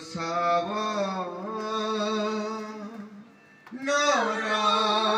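A man's voice chanting in long, held notes. It breaks off briefly about three seconds in, then starts again.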